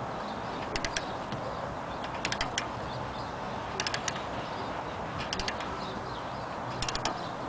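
Ratchet wrench tightening the castle nut on a new outer tie rod end: short runs of about three quick pawl clicks on each back-swing of the handle, five times, about every second and a half.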